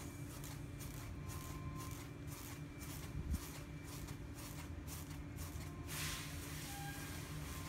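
Quiet steady low hum of room and machinery, with a single soft knock a little over three seconds in and a brief cloth-like rustle about six seconds in.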